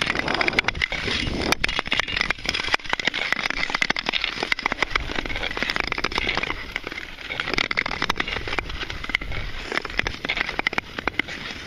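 Long-distance tour skate blades scraping and gliding over clear black lake ice: a steady hiss broken by many small clicks and ticks.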